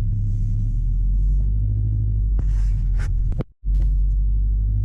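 Subaru BRZ's engine running with a steady low rumble, heard from inside the car. A few light clicks sound near the middle, and the sound cuts out for an instant about three and a half seconds in before the rumble resumes.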